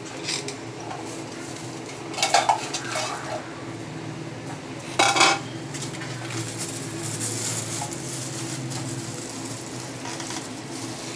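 Kitchenware clinking in two short bursts, about two seconds in and again about five seconds in, each with a brief ring, over a steady low hum.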